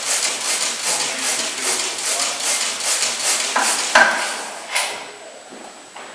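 94hp National gas engine turning over with a regular hissing clatter, about two and a half beats a second. The beats stop about four seconds in with a sharp clank and a second knock, and the sound then drops back quieter.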